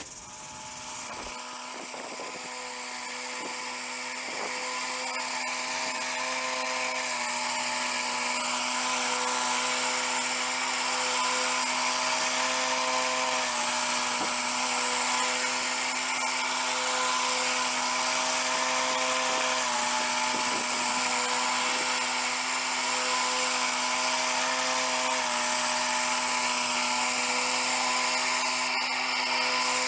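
Turbosawmill Model 8 swing-blade portable sawmill running, its 13-horsepower motor holding a steady note while the circular blade makes shallow skim cuts along a log. It grows louder over the first several seconds, then holds steady.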